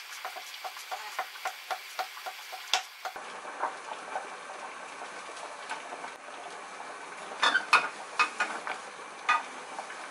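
A kitchen knife slicing cucumber on a wooden cutting board, quick taps about four a second. About three seconds in this gives way to a steady hiss from the gas stove and the pot boiling on it, with a few sharp clicks of chopsticks against a rectangular omelette pan as oil is wiped round it with paper towel.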